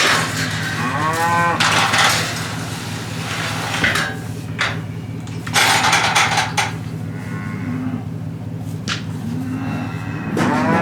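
A herd of beef cattle mooing repeatedly, some calls clear and rising-falling in pitch and some hoarse, with a few sharp knocks between them and a steady low hum underneath.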